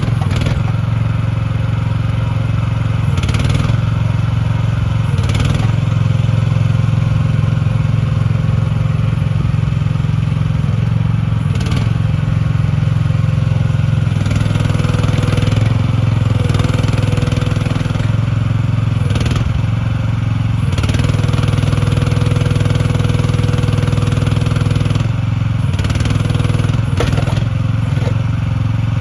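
Small gasoline engine of an AGT L12R mini excavator running steadily, started on choke, with a sharp clank every few seconds.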